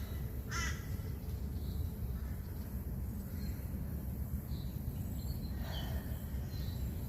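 A crow cawing once about half a second in, with a fainter call near six seconds in and a few faint high chirps between, over a steady low rumble.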